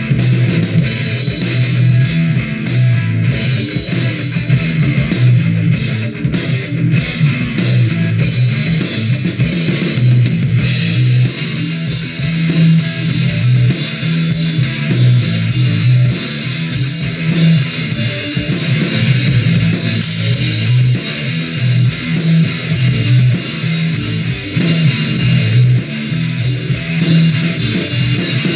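Rock band playing loud and continuously: electric guitar over a drum kit with cymbals.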